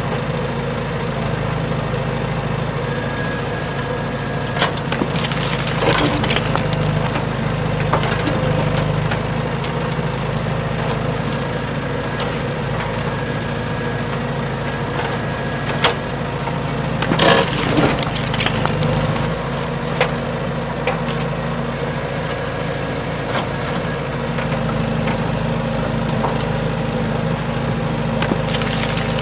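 A small motor hums steadily, with scattered clicks and a few brief clatters, the loudest about five and seventeen seconds in.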